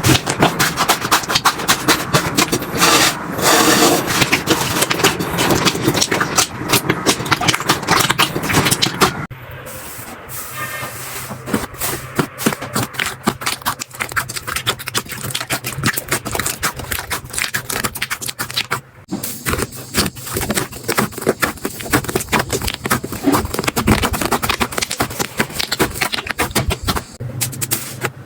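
Slime being squeezed and pressed by hand, giving dense rapid crackling and popping. It turns quieter at a sudden cut about nine seconds in, then goes on with softer clicks and squishes.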